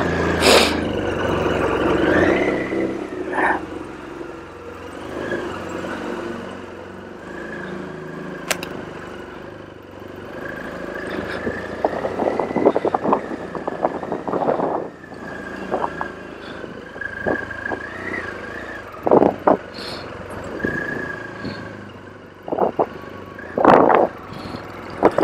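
BMW R 1200 GS Rallye boxer-twin motorcycle riding slowly, its engine running at low revs, with rattles and occasional loud knocks, the loudest about 19 and 24 seconds in.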